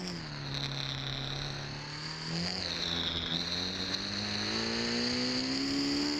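Onboard sound of a Ducati endurance racing motorcycle's engine at speed, with a high whine over it. The pitch drops just after the start, holds, steps up about two and a half seconds in, then climbs steadily as the bike accelerates.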